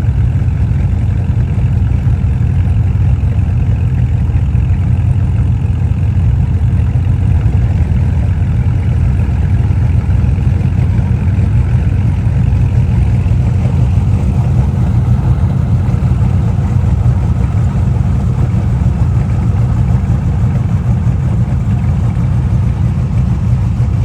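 A car engine running steadily close by, a loud, deep, unchanging rumble with no revving.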